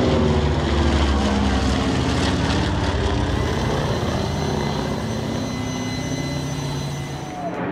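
The piston engines of a four-engine propeller bomber droning as it passes low overhead, loudest in the first two seconds and then fading slowly as the plane moves away.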